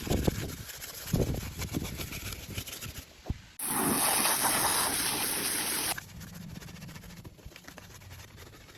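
Water spraying in a steady hiss for about two seconds, starting and cutting off suddenly near the middle, between stretches of irregular knocking and splashing.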